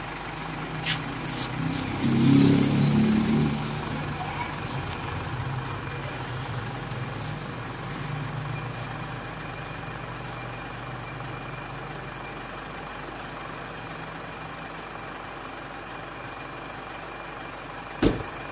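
Motor vehicle engine running, swelling to its loudest about two seconds in and then fading away gradually; a single sharp knock near the end.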